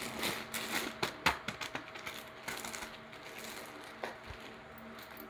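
Plastic courier mailer bag crinkling and crackling as hands handle it and work at its seal, busiest and loudest in the first couple of seconds, then quieter with a few single crinkles.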